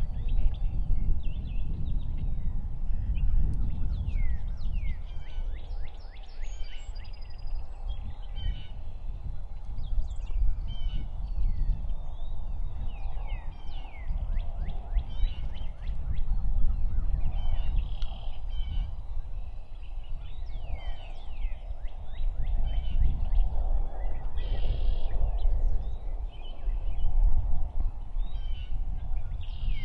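Songbirds singing with distant wild turkeys gobbling, over a steady low rumble of wind on the microphone.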